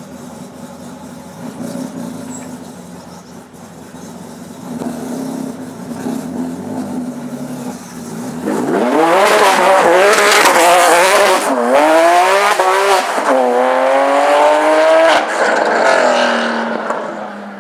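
Rally car engine accelerating hard past at full throttle, its pitch climbing and then dropping back with each of about three upshifts, loudest in the middle and fading away near the end. A steady low engine drone is heard before it arrives.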